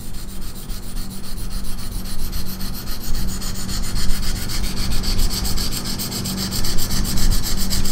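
A 1500-grit diamond stone on a KME guided-rod knife sharpener is stroked rapidly back and forth along a steel knife edge with light pressure. It makes a continuous, very smooth, fine rasping of repeated strokes. This is the final fine-grit stage of sharpening.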